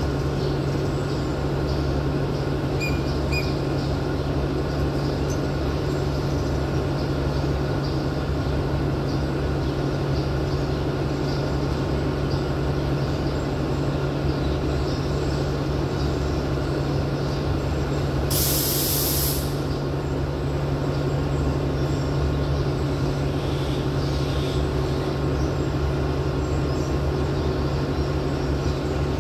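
Diesel locomotive engine running with a steady low drone as a train approaches, with a short hiss of air about eighteen seconds in.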